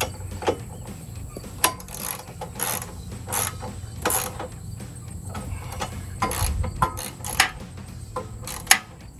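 Hand socket ratchet with a 16 mm socket on an extension, clicking through short, uneven strokes as it tightens the side armor's mounting bolts. A few sharper clicks stand out among the strokes.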